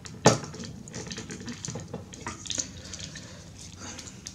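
Plastic parts of a Masterpiece MP-17 Prowl transforming figure clicking and rubbing as it is handled and its joints are moved: one sharp click about a quarter second in, then lighter irregular ticks and scraping.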